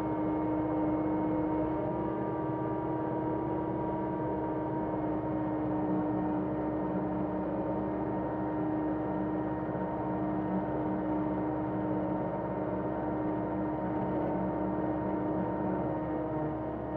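John Deere 325G compact track loader's diesel engine running at a steady speed, an unchanging drone with constant tones on top.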